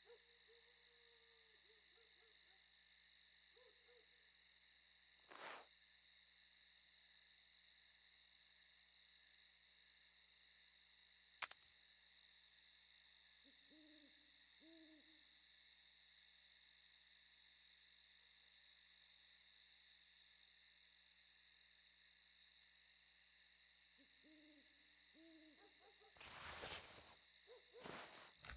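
Quiet night ambience: a steady high insect drone, with an owl hooting in short groups of calls several times. There is a brief noisy rush near the end.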